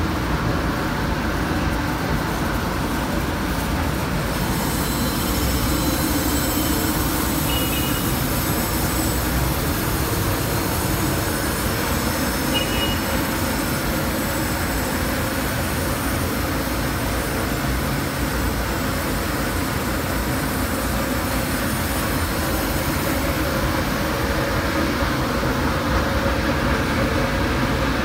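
Norton cylindrical grinder running, its 30-inch wheel grinding a metal roll with coolant flowing: a steady machine hum under a hiss from the wheel on the work that grows brighter about four seconds in. Short high chirps sound twice, about five seconds apart.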